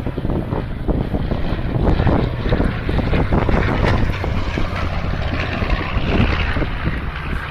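Propeller aircraft engine running steadily and fairly loud, with an uneven, fluttering edge.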